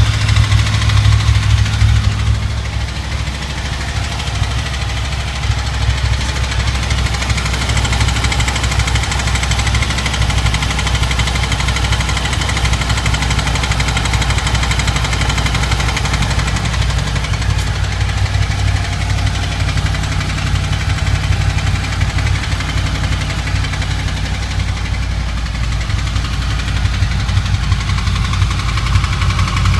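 Honda VFR800 V4 engine idling steadily below its 65 °C operating temperature. It carries the strange engine noise that the owner hears only while the engine is under 65 °C.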